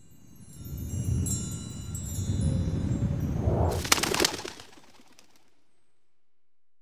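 Logo sting of sound effects: high tinkling chimes over a low rumbling swell that builds, then a short cluster of sharp rustling strokes about four seconds in, and a fade out by about five seconds.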